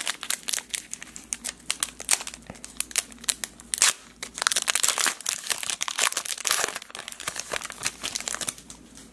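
Foil wrapper of a Panini Playoff football card pack being torn open and crinkled by hand: a dense run of crackling that thins out near the end.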